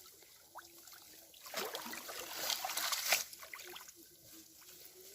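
Water splashing and trickling, loudest in a burst of about two seconds near the middle.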